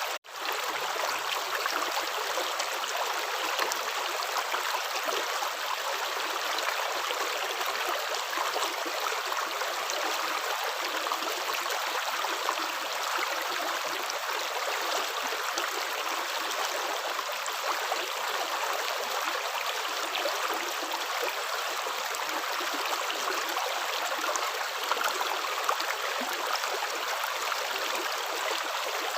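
Running water flowing steadily like a stream, an even rushing and trickling with no clear footsteps. It cuts out for an instant just after the start, then carries on unchanged.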